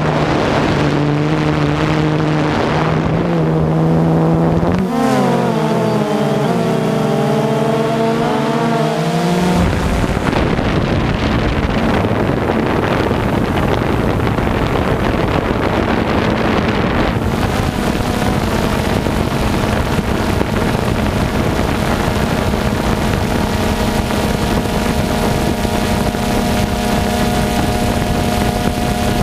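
DJI Phantom 2 quadcopter's motors and propellers running, a steady multi-tone whine that shifts in pitch several times as the throttle changes, with a rougher rush of air added from about ten seconds in.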